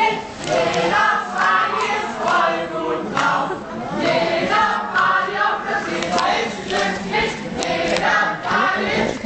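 A large group of people singing together loudly, with many voices in rhythmic, repeated phrases.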